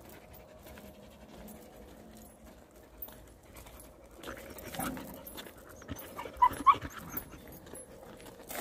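Black-and-tan Jindo dog panting, with two short, sharp sounds close together about six and a half seconds in.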